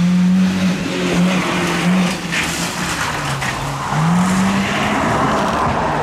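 Toyota HiAce rally van's engine under load as the van slides through a corner, the engine note falling and then climbing again about four seconds in, with steady tyre noise from the wet road surface.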